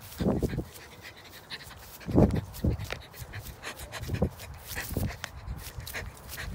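A dog panting close by, with irregular footsteps on grass and handling thumps; the loudest thump comes about two seconds in.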